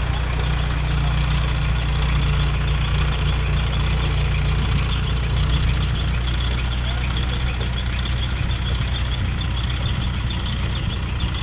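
A heavy engine idling steadily: a low, even hum with faint rapid ticking above it. The hum thins a little about halfway through.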